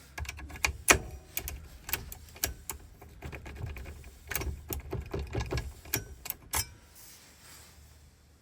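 An irregular run of sharp clicks and knocks, hard small objects being handled and set down, stopping about seven seconds in.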